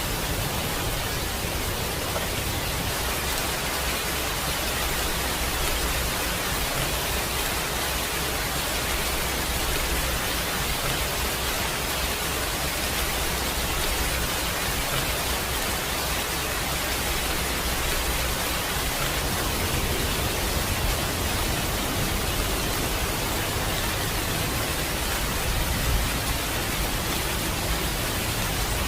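Steady rain, an even, unbroken hiss with a low rumble underneath that fades about two-thirds of the way through.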